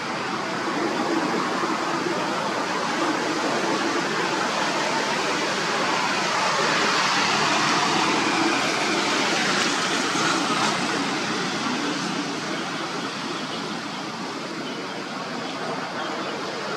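Steady rushing noise, swelling a little in the middle and easing off near the end.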